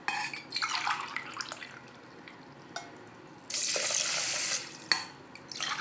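Water poured from a glass onto washed raw rice in a steel bowl, in several separate pours. The longest and loudest comes about three and a half seconds in and lasts about a second. This is the measured water being added for cooking the rice.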